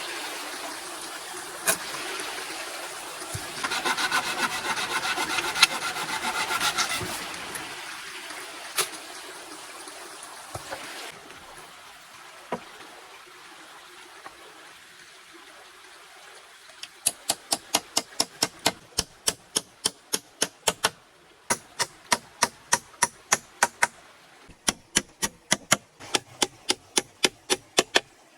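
Hand tools working wood: a rasping, sawing-like scrape in the first several seconds. Then, from about two-thirds of the way in, rapid sharp knocks come at about three or four a second, in runs broken by short pauses, as of chopping or hammering wood.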